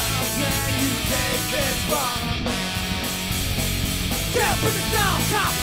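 Live ska-punk band playing loud amplified rock: electric guitars, bass and drums, with a horn section. A run of short falling notes comes in over the second half.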